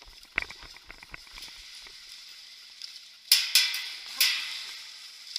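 Airsoft gunfire: three sharp pops in the second half, each trailing off quickly, after a run of faint crackling clicks.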